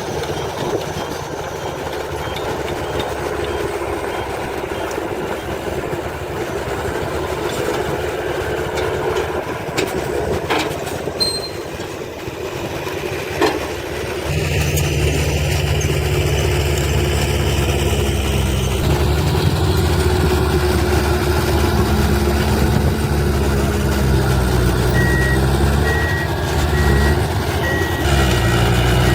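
Heavy diesel construction machinery running steadily, with the engine noise growing louder about halfway through. Near the end a truck's reversing alarm beeps at an even pace.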